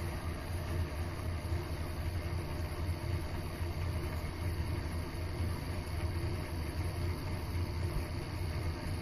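Mini lathe running with a steady hum while cutting a thread along a stainless steel rod.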